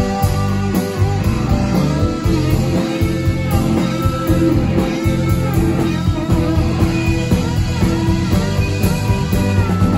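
Live rock band playing, with a lead electric guitar line of bent, sliding notes over a steady bass and drums.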